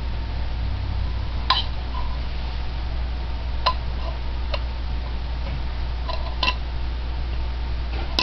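Light plastic clicks and clacks as toy food pieces and a plastic toy teapot are handled and knocked together, about six separate knocks spread out, over a steady low hum.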